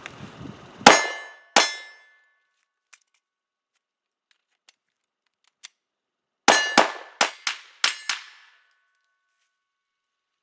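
Two 9mm pistol shots from a Glock 19, then a pause of a few seconds with faint clicks of a magazine reload, then six quick shots. Each shot has a short metallic ringing after it.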